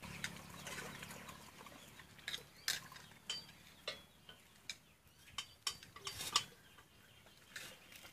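Faint, irregular clicks and knocks of firewood sticks and metal cooking vessels being handled, with a few short high chirps between them.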